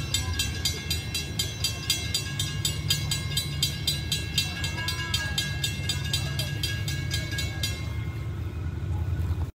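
Approaching diesel train with a steady low rumble, over a fast, even ringing tick of about four strokes a second that stops about 8 seconds in. The sound cuts off abruptly just before the end.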